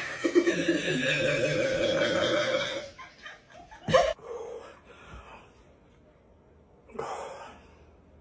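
A person laughing for about three seconds, then a short loud vocal sound about four seconds in and a weaker one near the end.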